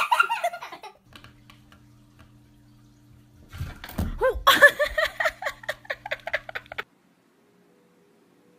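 People laughing and giggling: a short burst at the start, then a longer run of quick, pulsing laughter for about three seconds from the middle. A faint steady hum fills the gap between, and the sound cuts off suddenly near the end.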